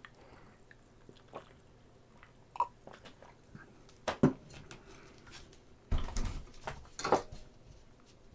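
Scattered light clicks and taps from small cast-resin model parts being handled on a cutting mat, with a short cluster of knocks about six to seven seconds in.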